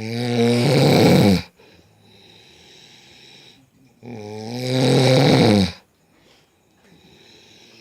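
A person snoring loudly. There are two long snores about four seconds apart, each growing louder over about a second and a half, with quieter breathing between them.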